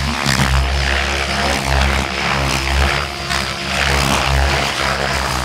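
Battery-electric Mikado Logo 700 RC helicopter flying 3D aerobatics: the main rotor blades whir and flutter over a steady low motor hum, the sound swelling and fading about once a second as the helicopter manoeuvres.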